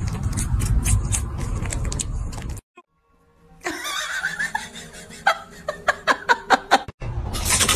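A person's snicker building into a quick run of laughs, about four a second, laid over the grinning dog clip; before it come a couple of seconds of rustling and clicking, then a moment of silence.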